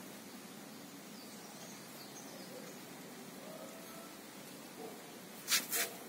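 Quiet outdoor ambience with faint, distant bird chirps. Near the end, two short, loud hissing bursts come about a third of a second apart.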